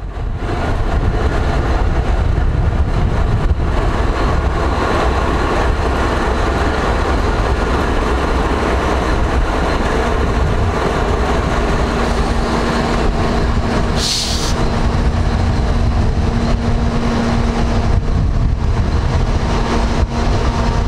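BNSF ES44C4 diesel locomotive idling with a steady low rumble. A steady hum joins about twelve seconds in, and there is a short hiss about fourteen seconds in.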